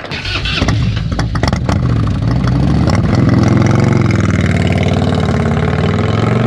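1995 Harley-Davidson Road King's V-twin engine running, its pitch rising a little partway through and then held steady.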